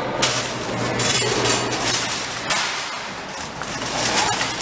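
Clinking and rattling with repeated sharp knocks over a steady low hum that fades about halfway through: the general noise of a busy store entrance.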